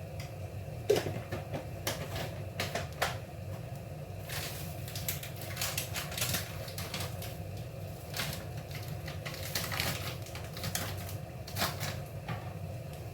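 A spatula stirring soya beans roasting in a pan, with irregular clatters and scrapes against the pan. A steady low hum runs underneath.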